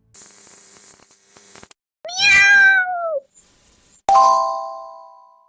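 A short burst of static hiss, then a cat's single meow that falls in pitch, then a bell-like ding about four seconds in that rings and fades away over about a second and a half.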